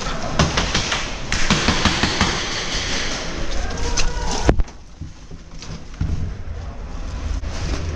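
Scattered knocks, taps and rustling from a paintball player's gear and movement, with one loud sharp crack about four and a half seconds in, after which the sound drops quieter.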